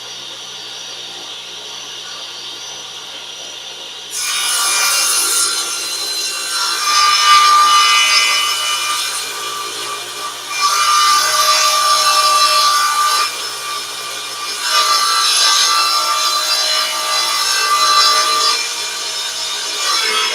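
Table saw running free, then from about four seconds in its blade cutting through a sheet of plywood, loud in three long surges as the sheet is fed through.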